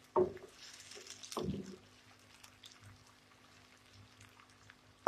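Sliced onions frying in cooking oil over medium heat, just beginning to brown: a faint sizzle with scattered small pops and crackles. Two soft knocks come in the first second and a half.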